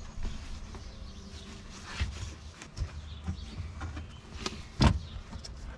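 Handling noise as a homemade foam-and-canvas windscreen sunshade is pushed and shifted against the windscreen: irregular rustles and soft knocks, the loudest knock just before the end.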